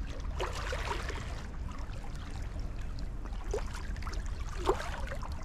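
Shallow seawater washing and gurgling among shoreline rocks, with a few short gurgles over a steady low rumble.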